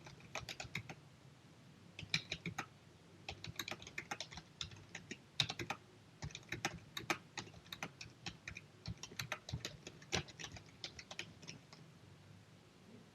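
Typing on a computer keyboard: irregular bursts of keystrokes with short pauses between them, over a faint steady low hum.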